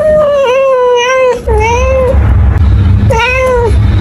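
Domestic cat meowing three times: a long drawn-out meow, a shorter one straight after it, and another about three seconds in.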